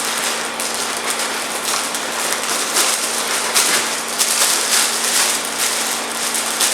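Cardboard box and styrofoam packing being handled, rustling and scraping continuously in quick irregular surges as the packing is pulled out.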